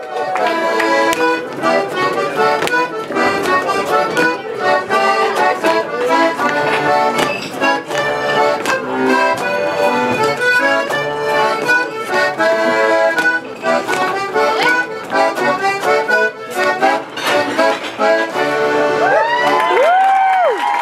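Accordion playing a lively traditional dance tune with quick, evenly paced notes. Near the end there are a couple of whoops.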